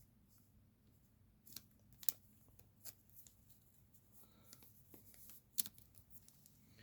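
Trading cards being handled: a few faint, short clicks and rustles of card stock, spaced out by quiet.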